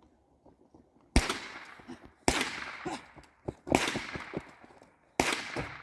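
Four single gunshots, spaced about a second or more apart and starting about a second in, each trailing off in an echo. They are steady covering fire while the partner moves.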